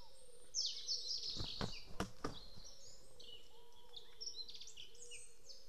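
Several small songbirds singing over one another in spring woodland, with a loud call about half a second in. A few dull knocks sound between about one and a half and two and a half seconds in, over a faint steady hum.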